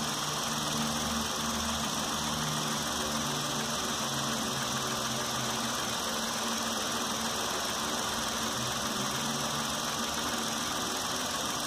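Hyundai HB20 engine idling steadily, warmed up, with a newly fitted catalytic converter.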